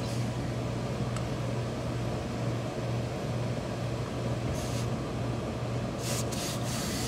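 Hand steam iron pressing a folded edge of wool suit cloth: short hisses of steam about four and a half and six seconds in, over a steady low hum from the pressing equipment.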